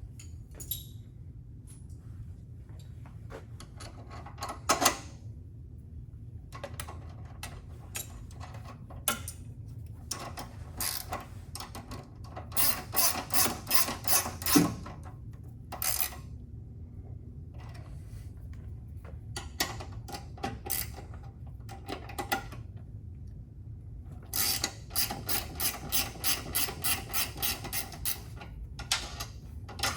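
Hand ratchet wrench clicking in two runs of quick, even strokes, about three a second, as bolts are tightened. Between the runs there are scattered clinks and knocks of tools and metal parts.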